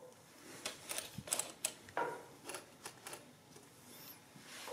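Victor adding-listing machine's mechanism worked by hand: a quick run of sharp mechanical clicks and clatter lasting about two and a half seconds.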